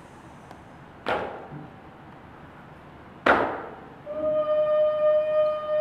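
Two sharp strikes on metal cooking pots, about two seconds apart, the second louder, each ringing briefly. From about four seconds in, a steady held musical tone with overtones begins.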